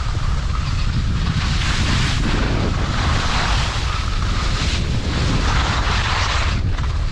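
Wind buffeting the microphone: a loud, uneven rumble with a rushing hiss that swells and eases off.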